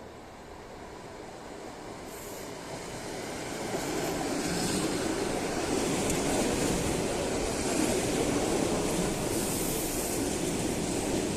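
ED4M electric multiple unit running into a station: a rumble of wheels on rail that grows louder over the first four seconds, then stays steady and loud as the train comes alongside, with high hiss at times.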